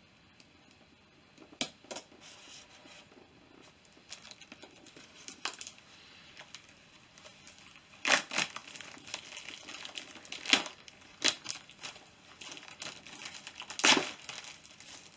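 A snack subscription box being opened by hand: packaging rustling and tearing in irregular bursts, the loudest rips about halfway through and near the end.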